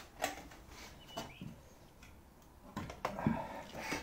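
A few separate metal clinks and knocks as a long breaker bar and socket are handled and set on a rusted bolt of a car's front suspension crossmember.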